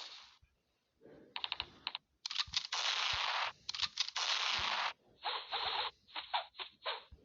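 A run of short weapon sound effects from a video-editing app's library, played one after another. Some are trains of rapid clicks, others are hissing blasts up to about a second long, and each one cuts off suddenly.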